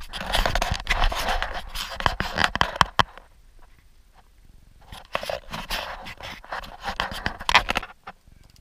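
Rustling and scraping handling noise from a handheld camera carried at a walk on a wooden boardwalk, in two stretches with a quieter pause between, cutting off shortly before the end.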